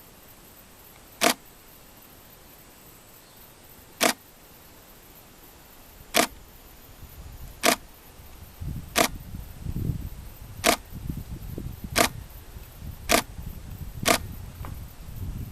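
Nine sharp clicks, two to three seconds apart at first and closer together later, over a low rumble that builds from about halfway through, as of a diesel railcar drawing near on the line.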